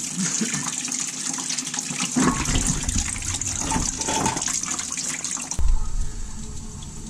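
Flushing water from a garden hose gushing and splashing out of the engine block of a Dodge Ram's 5.9 Magnum V8 during a cooling-system flush. The flow carries air bubbles drawn in at a leaky hose connector. The rushing hiss cuts off suddenly with a bump about five and a half seconds in.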